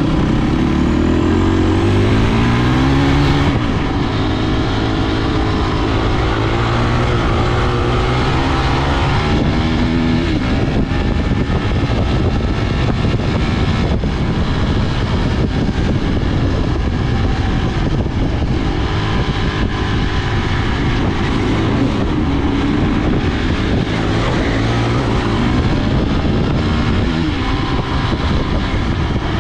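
A motor running steadily at speed, its pitch rising over the first few seconds and again briefly about ten seconds in, with a rushing, wind-like noise throughout.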